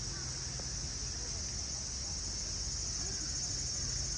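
A steady, unbroken chorus of cicadas buzzing high, over a low background rumble and faint distant voices.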